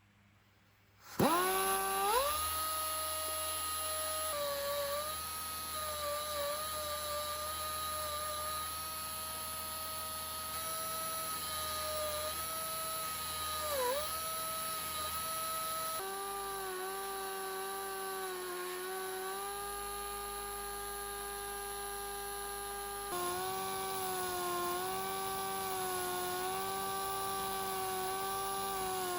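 A small high-speed electric power tool starts about a second in, spins up quickly and runs with a steady high whine. Its pitch shifts at two abrupt cuts, with a brief dip in speed partway through, as though under light load.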